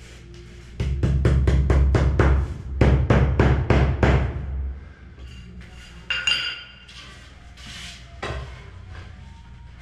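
Sand-cement screed mortar being tamped down hard with a trowel: a quick run of dull thuds, about five a second, lasting some four seconds. About six seconds in comes a short ringing clink, and a lighter knock follows near the end.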